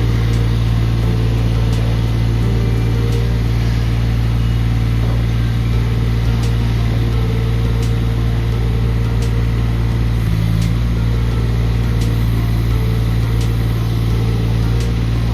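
ME1200 skid steer loader's engine running steadily under operation, a strong low hum with a slight change in note about ten seconds in and a few light clicks throughout.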